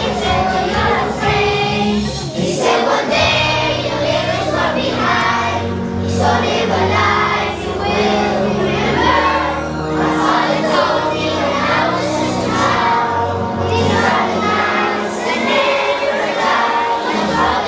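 Group of children singing along to loud backing music, with a steady bass line under the voices.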